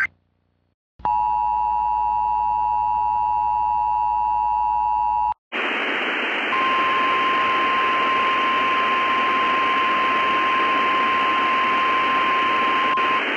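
Emergency Alert System two-tone attention signal, a steady dual tone starting about a second in and held for about four seconds before cutting off. Then a steady static hiss, with a single steady tone near 1 kHz sounding over it for most of the rest.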